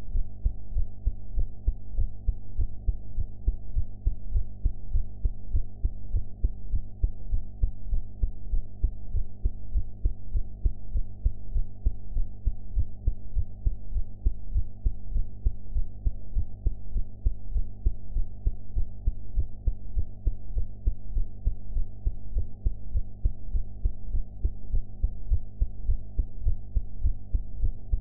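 A woman's heartbeat after eating, beating in a steady, even rhythm of low thuds.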